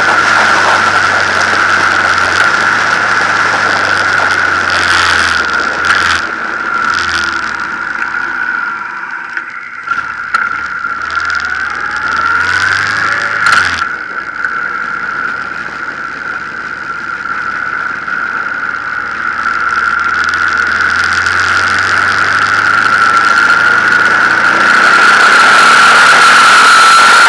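Honda VTX 1800 V-twin engine running under way, mixed with wind rush and a steady high whistle. The engine note drops as the bike slows around the middle, then picks up and grows louder towards the end.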